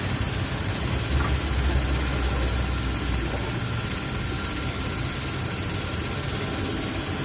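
Steady mechanical running noise, with a deeper rumble for a couple of seconds about a second in.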